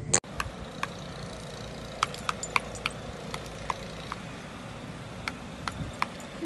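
Light metallic clinks, about a dozen, spaced irregularly over a steady low background noise, after a brief sharp sound at the very start.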